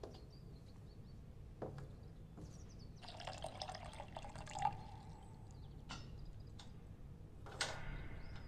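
Faint liquid sounds, pouring and dripping, with a few light clicks and knocks, playing back from a music video's quiet opening.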